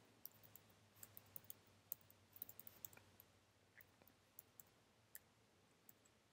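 Faint computer keyboard typing: irregular key clicks, bunched together in the first few seconds and sparser later, over a faint low hum.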